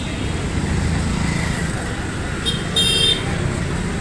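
Steady low hum of passing road traffic, with a vehicle horn giving two short high toots in quick succession about two and a half to three seconds in.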